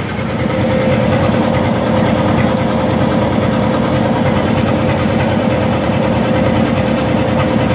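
Lincoln SA-200 welder's four-cylinder gasoline engine running, stepping up in speed about a third of a second in as the automatic idle control raises it from idle, then holding steady with a steady tone over the engine rumble. It runs a little rough; the owner thinks it needs a tune-up, such as plugs or a carburetor cleaning.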